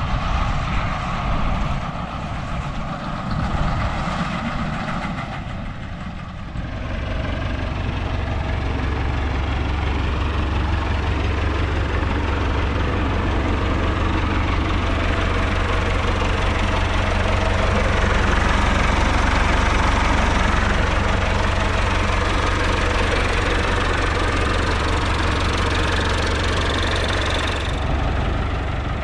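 Massey Ferguson 397 tractor's diesel engine running close by. Its deep rumble grows louder about six or seven seconds in and then holds steady.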